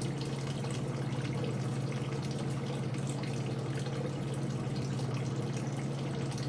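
Small garden water feature: water trickling and dripping over a steady low hum.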